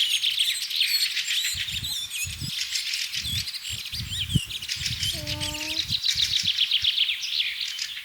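Dense chorus of many small birds chirping and twittering rapidly, with a short, lower pitched call about five seconds in.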